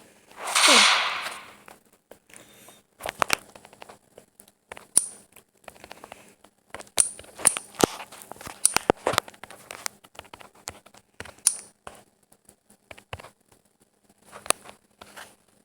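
Small firecrackers going off on a metal ceiling fan: irregular sharp pops and crackles, scattered unevenly, after a short loud hissing burst with a falling tone at the start.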